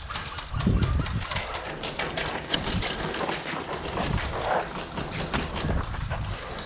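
A rapid, irregular run of sharp clicks and knocks with scattered low thuds.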